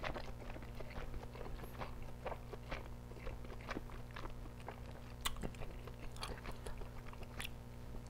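A person chewing a mouthful of Chicago-style deep-dish pizza, heard as quiet, irregular mouth clicks and chewing sounds.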